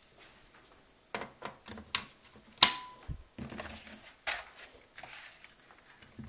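Irregular clicks, taps and knocks from laptop parts and small tools being handled. The loudest is a sharp click with a brief metallic ring about two and a half seconds in.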